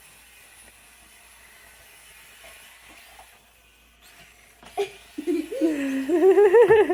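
Faint background hiss, then about five seconds in a child's voice breaks into a loud, wavering, rising squeal like an excited giggle.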